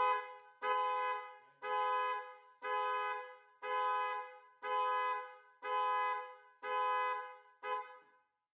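C8 Corvette's factory alarm sounding the two-tone car horn in regular honks about once a second, set off by reconnecting the battery; the last honk is cut short near the end.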